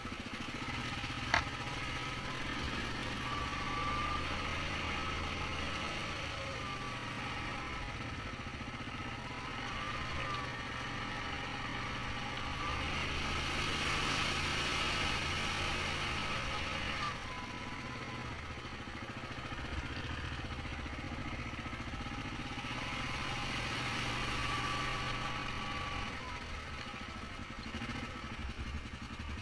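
Yamaha Grizzly 700 ATV's single-cylinder engine running steadily under way, its pitch wavering with the throttle. About halfway through, a rush of hissing water spray is heard as the quad ploughs through a deep puddle. There is one sharp click about a second in.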